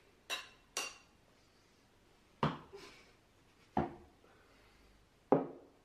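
Beer glasses clinking together twice in a toast, each clink ringing briefly. Then three single knocks, a glass being set down on a table.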